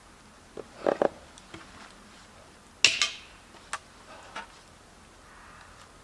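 Hatchet struck and knocking against a log while splitting wood: a double knock about a second in, the loudest, sharp clinking strike about three seconds in, then a few lighter taps.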